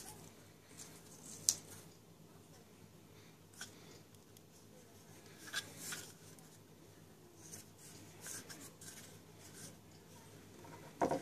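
Light handling sounds from an aluminium Xiaomi 10400 mAh power bank being turned over in the hands: soft rustling of its wrapping and a few sharp clicks.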